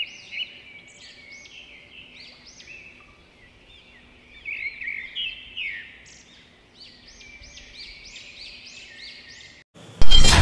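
Birds chirping in quick runs of short, repeated high calls, about three or four a second. Near the end, loud music cuts in abruptly.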